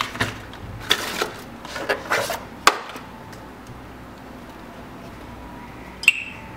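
Cardboard box and plastic-wrapped accessories being handled: rustling with several sharp clicks and taps in the first three seconds, then quieter, and a single sharp click near the end.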